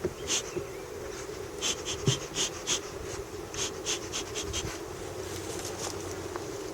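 Honeybees buzzing steadily as a hive is opened, with clusters of short scratchy clicks in the first half.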